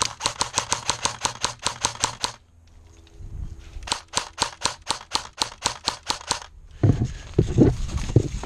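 Airsoft gun firing in two long bursts of sharp, rapid clicking shots, about six or seven a second and then a little slower, with a pause of about a second and a half between them. Heavier thumps and rustling near the end.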